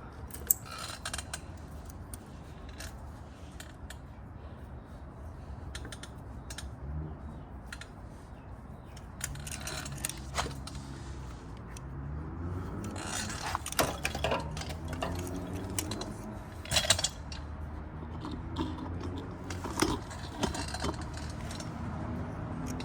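Scattered metallic clicks, knocks and short rattles of hand work on motorcycle carburetors being fitted into their rubber intake boots, with a busier run of clatter a little past halfway.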